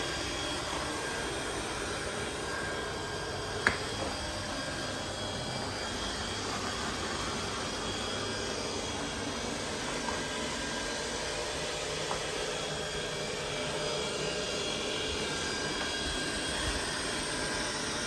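Robot vacuum cleaner running with a steady whir, with one sharp click about four seconds in.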